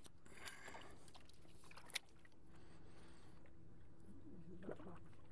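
A fish being landed in shallow water at the bank: faint splashing and handling noise as the landing net goes in, with two sharp clicks about two seconds apart.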